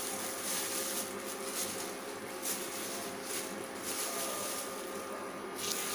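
Faint, steady sizzle of ghee heating in a flat pan.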